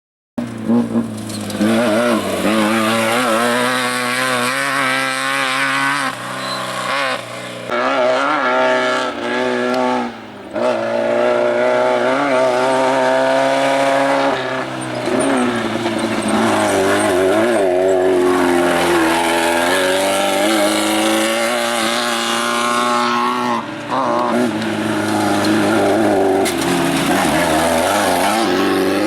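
Off-road race vehicle engines revving hard, the pitch repeatedly rising and falling with throttle and gear changes, with short drops in level about ten seconds in and again near twenty-four seconds.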